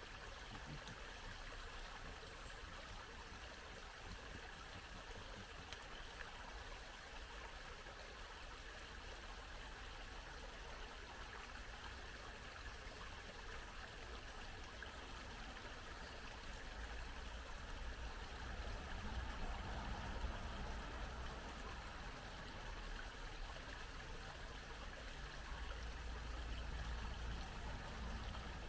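Small brook babbling steadily, water trickling and gurgling. A low rumble swells under it twice in the second half.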